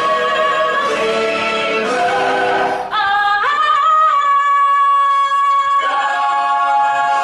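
Live musical-theatre recording: a female lead belts, gliding up about three seconds in to a high note she holds for a couple of seconds over sparse accompaniment, then the chorus and orchestra come back in with full sustained chords.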